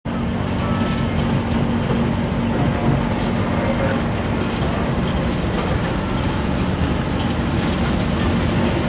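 Passenger train running along the track, heard from an open carriage window: a steady rumble of wheels on rails with a steady hum.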